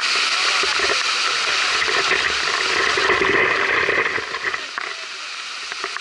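Waterfall water rushing and splashing over rock, a steady noise that drops a little in level about four and a half seconds in.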